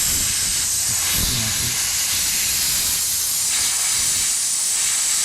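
Compressed-air blow gun blasting a steady, loud hiss as it blows dirt out of a chainsaw's sprocket area. The hiss cuts off sharply at the end.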